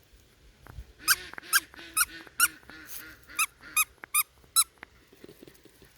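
Squeaky plush teddy-bear dog toy squeezed about nine times in quick, even succession, each squeeze giving a short high squeak.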